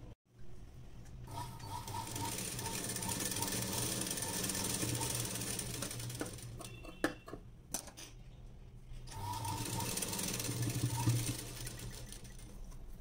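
Black straight-stitch sewing machine running, stitching fabric in two runs: a long one from about a second in lasting some five seconds, and a shorter one near the end. A few sharp clicks fall in the pause between them.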